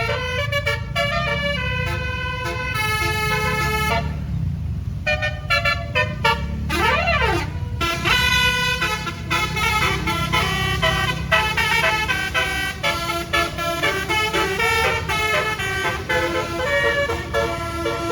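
A tour bus's telolet basuri musical air horn playing a quick tune of stepped notes, breaking off briefly about four seconds in, then a rising and a falling sweep before the tune resumes. A low rumble runs underneath.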